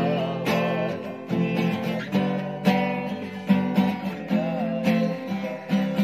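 Acoustic guitar strummed in a steady rhythm of chords, with a man's voice singing a melody line along with it in places.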